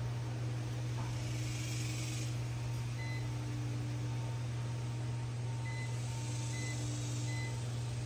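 Bell and Howell socket fan running with a steady low hum. A few short electronic beeps come from it, one about three seconds in as its LED light switches on and three more near the end.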